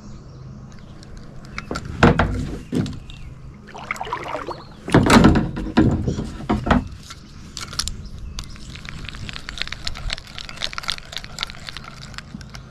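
Several loud knocks and bumps of gear being handled in a plastic fishing kayak, the loudest about five seconds in, followed by a few seconds of quick light clicking.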